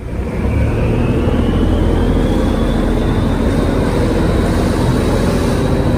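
Small wooden boat's stern-mounted engine running steadily as the boat approaches, its high whine rising slowly in pitch.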